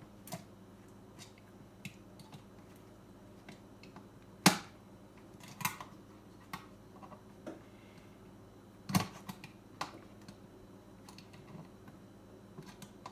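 Scattered sharp clicks and snaps of plastic retaining tabs on a BMW E39 radio display housing being pried and flipped loose. The two loudest snaps come about four and a half and nine seconds in, with lighter ticks between.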